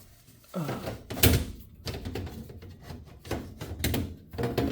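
Furnace air filter being slid into its slot in the furnace housing: irregular scraping with a string of knocks and clacks, the loudest about a second in.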